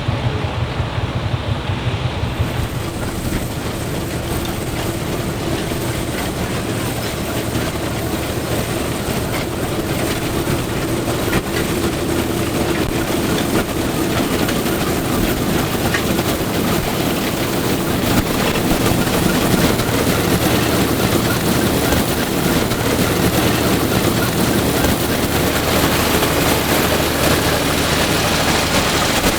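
Air-cooled three-cylinder Deutz F3L514 diesel tractor running steadily under load, pulling a Claas Super pull-type combine whose threshing machinery is running. A hissing rush joins in about two seconds in.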